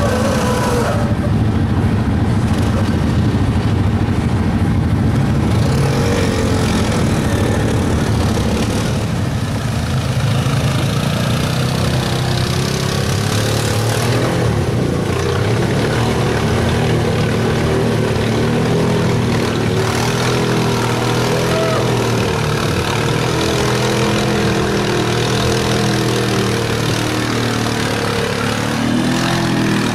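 ATV and side-by-side engines running and revving through deep mud and water, their pitch rising and falling as the throttle is worked.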